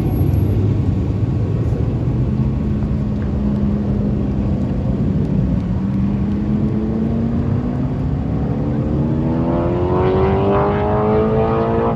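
Jet engine noise from USAF Thunderbirds F-16s: a loud continuous rumble with a whining tone that holds steady, then climbs in pitch over the last several seconds.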